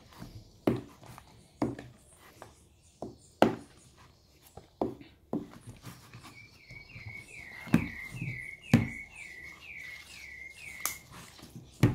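Slime being kneaded by hand in a plastic bowl: irregular sticky pops and slaps. About halfway through, a bird joins with a short falling chirp repeated about two to three times a second for some five seconds.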